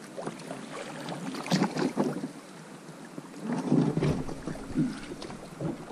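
Small boat being rowed down a shallow, rocky river riffle: the current rushes and oar strokes splash irregularly, louder about one and a half seconds in and again near four seconds.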